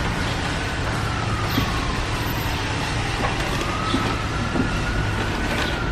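Steady road and engine noise inside a moving car, with a low hum and a faint whine that slides down in pitch and then back up.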